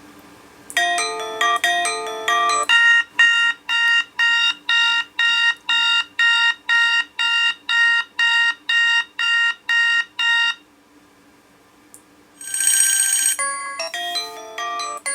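Preset tones of an HTC Desire 610 smartphone played through its own speaker. A short chime melody gives way to a fast repeating chime pattern of about two notes a second for roughly eight seconds, then it stops. After a brief gap there is a short buzzy tone, and another chime melody starts near the end.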